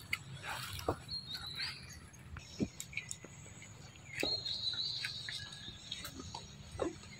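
Outdoor ambience: scattered light clicks and rustles, with a thin high chirping whistle about a second in and a longer one about four seconds in.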